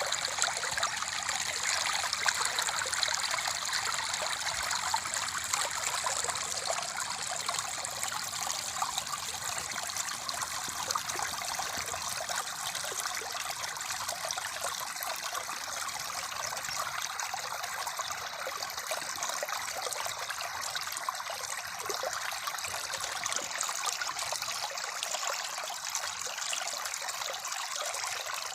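River water flowing and trickling, a steady rushing hiss with no pauses.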